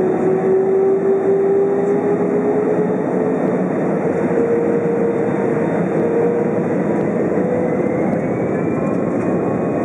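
An Airbus A320's jet engines spooling up at the start of the take-off roll, heard from inside the cabin: a loud, steady rush with an engine whine that rises slowly in pitch, and a higher whine climbing in near the end.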